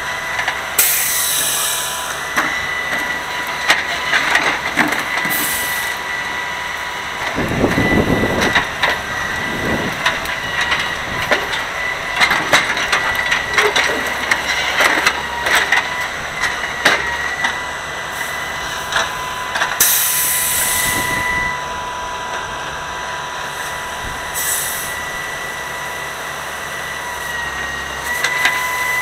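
Grapple truck's hydraulic knuckle-boom loader at work: a steady high whine over the running engine, with clattering of trash and branches in the grapple bucket and a heavy thud about 8 seconds in. Short hissing bursts come twice, near the start and about 20 seconds in.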